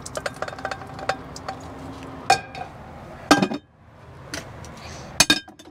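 Pots, pans and lids clinking and clanking as a frying pan is stacked into a drawer of cookware, with a run of light clicks and a few sharp metal knocks that ring briefly.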